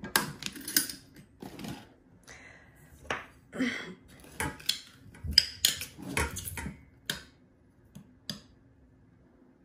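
A spoon and kitchen utensils clinking and knocking against metal saucepans and containers while sugar is spooned in. The clinks come thick and irregular for about seven seconds, then thin out to a couple of taps.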